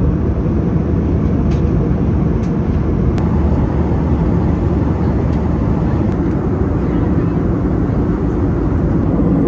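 Steady cabin noise of a jet airliner in flight: the even, low rushing of the engines and the airflow past the fuselage heard from a seat by the window.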